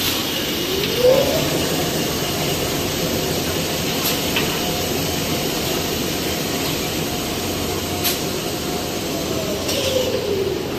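Toilet paper production line machinery running: a steady mechanical hum with a whine that rises about a second in, holds steady, and falls away near the end, and a few sharp clicks.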